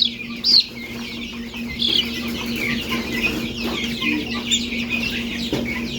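Baby chicks peeping: quick, high, downward-sliding cheeps, two loud ones right at the start, then many softer ones overlapping. A steady low hum runs underneath.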